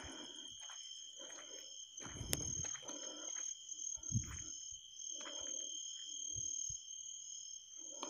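Night insects, crickets, chirring in a steady high drone, over footsteps scuffing along a dirt road about once a second. There is a heavier low thump about two seconds in and another around four seconds.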